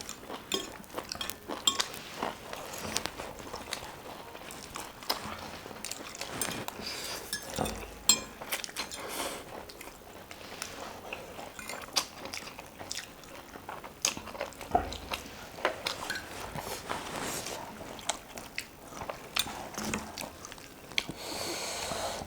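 Close-up eating sounds: chewing and biting food, with many short crackles and clicks and the occasional clink of cutlery on dishes.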